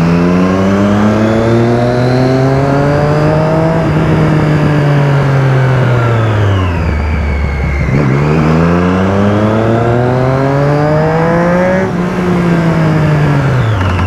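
Motorcycle engine heard from the rider's seat, pulling away twice. The revs climb steadily, sink back to a low idle about halfway through, climb again, then drop suddenly near the end and settle back down. A steady rush of wind and road noise runs underneath.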